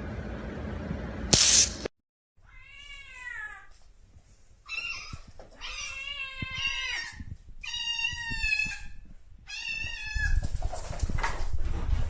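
A domestic cat meowing about five times in a row, long drawn-out meows that waver in pitch. They are preceded by steady background noise and a brief loud rush of noise that cuts off about two seconds in.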